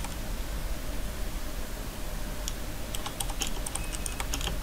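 Computer keyboard typing: a lone keystroke about halfway through, then a quick run of keystrokes near the end, over a steady low hum.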